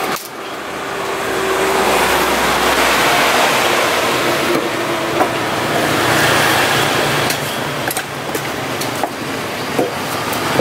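A nearby motor vehicle engine running, a steady noise that builds over the first couple of seconds and then holds. A few light knife taps on the wooden chopping block come through it.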